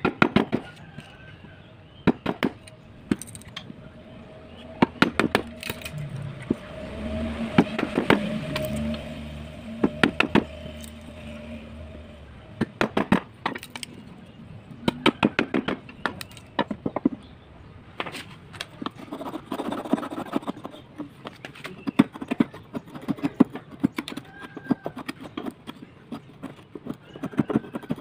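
A wood chisel being struck again and again, chopping a slot into a wooden block: runs of sharp knocks with short pauses between them. A low steady drone comes in for several seconds about a quarter of the way in.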